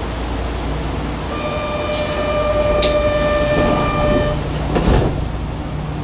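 Steady rumble of a Kyoto Municipal Subway Tozai Line car running, heard inside the car. About a second in, a flat high-pitched whine with overtones sets in and holds for about three seconds, with a few sharp clicks and a louder knock near the end.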